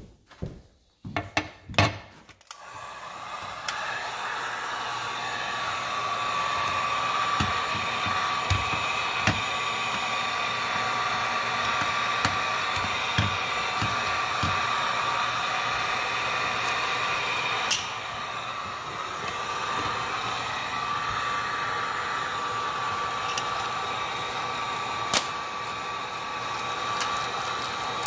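Electric heat gun starting up about two seconds in, then blowing steadily with a fan noise and a steady whine, aimed at the granite backsplash joint to soften its adhesive. A few light knocks from tools handled on the stone counter, mostly before it starts.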